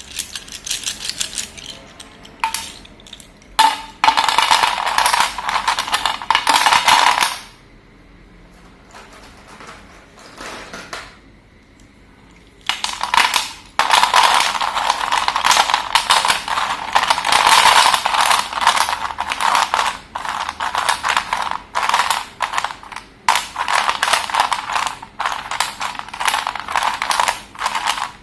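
Slate pencils being crumbled and crushed: dense crunching and crackling. There is a long crunching run from about 13 seconds in, and a quieter gap of several seconds before it.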